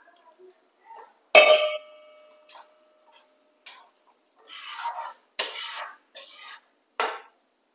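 Metal spatula clanking against a stainless steel bowl and an iron kadhai while fried fish pieces are put into boiling curry. A sharp ringing clink about a second and a half in is followed by a run of short scrapes and knocks.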